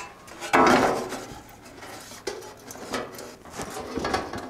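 Sheet-steel patch panel clattering and scraping against a thin, rusty truck inner fender as it is laid on and shifted for fit, with one loud ringing clank about half a second in and lighter knocks after.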